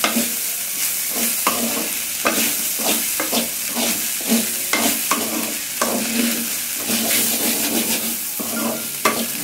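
Chicken fried rice being stir-fried in a metal wok: a steady sizzle with a wooden spatula scraping and knocking against the pan in quick, irregular strokes as the freshly added rice is tossed through.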